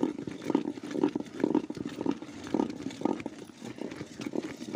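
A flat wooden spatula stirring rice flour into thick jaggery syrup in an aluminium pot, in rough strokes about twice a second, as the adhirasam dough is mixed.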